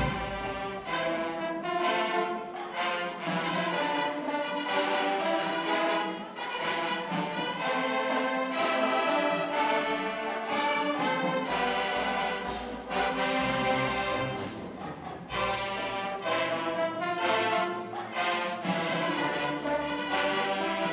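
HBCU marching band horns (sousaphones, trumpets, trombones and saxophones) playing a hymn-like concert arrangement in full, held brass chords that change every second or so.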